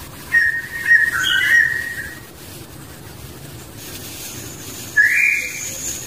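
A clear whistle held for about two seconds, wavering slightly in pitch, then a short upward-sliding whistle about five seconds in. A thin, high, steady tone comes in partway through.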